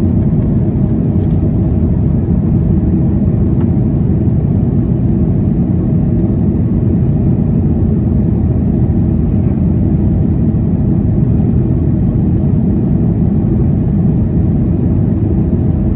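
Boeing 737-800 cabin noise during takeoff: the steady, loud, low rumble of its CFM56 turbofan engines at high thrust mixed with airflow, heard from inside the passenger cabin.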